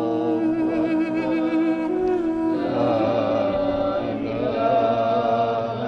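A male Iraqi reciter's voice chanting in a long, melismatic devotional line. The notes are held and waver with ornaments, and the voice moves to a new note about halfway through.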